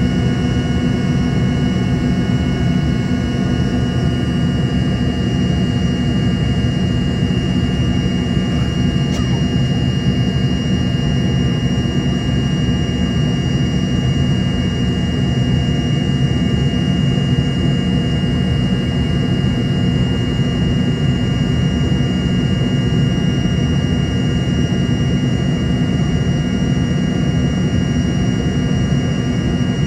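Embraer ERJ-145's rear-mounted Rolls-Royce AE 3007 turbofans running steadily as heard inside the cabin: a constant low rumble with several steady high whines over it.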